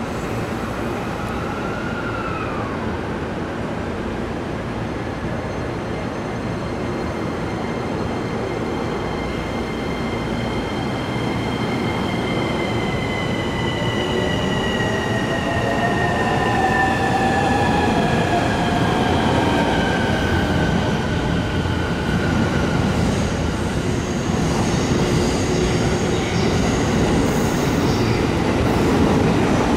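JR Takasaki Line electric train running at the station platform: a steady rumble with a high whine of several tones that slowly falls in pitch through the middle, and the train grows louder in the second half.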